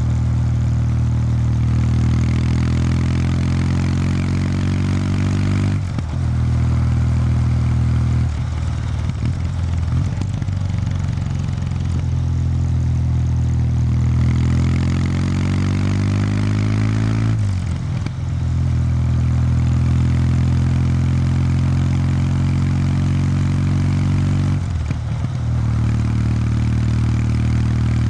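Kawasaki W800 Street's air-cooled parallel-twin engine through its stock exhaust, ridden on the road. The engine note climbs steadily in pitch and dips briefly at gear changes about six, nine, eighteen and twenty-five seconds in.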